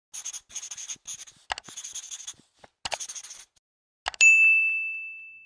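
Pen-on-paper scratching sound effect in several short strokes with a few clicks among them, then a mouse click and a single bright bell ding, the loudest sound, that rings on and slowly fades.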